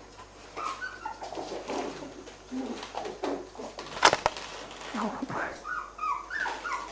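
Five-week-old Cairn terrier puppies whining and growling in short bursts as they tussle over a sheet of paper, with paper rustling and one loud sharp crackle about four seconds in.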